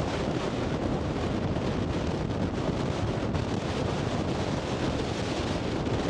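Strong storm wind buffeting the microphone in a steady, dense rush, mixed with heavy surf breaking on the sea.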